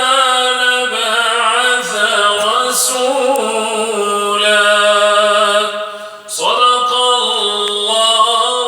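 A man reciting the Quran in a melodic, chanted style, holding long notes with ornamented pitch bends. He breaks for a breath about six seconds in, then resumes.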